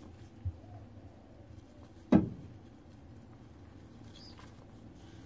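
Green-cheeked conure's feet and beak scratching and rustling faintly in a terry towel as it clambers on it, with a soft thump about half a second in and one sharp knock about two seconds in.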